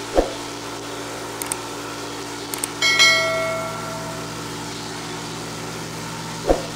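A pressure washer running steadily, driving a rotary surface cleaner over block paving. Over it play the sound effects of a subscribe-button animation: a whoosh near the start, mouse-like clicks around one and a half and two and a half seconds in, a bell ding about three seconds in that rings for about a second, and another whoosh near the end.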